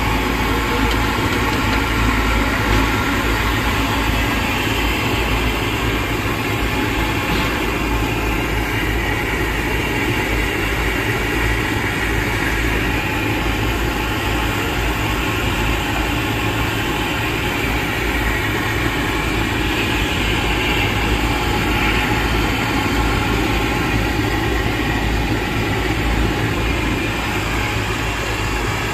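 French fries deep-frying in a large wok of hot oil, sizzling steadily, over a steady low engine-like rumble.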